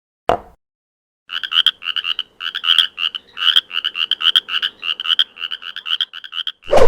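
Frog croaking: a quick, unbroken run of short croaks lasting about five seconds, coming after a single short knock. A louder thump comes right at the end.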